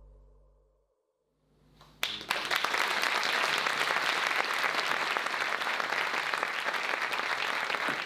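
Music fading out, about a second of silence, then an audience breaking into steady applause about two seconds in.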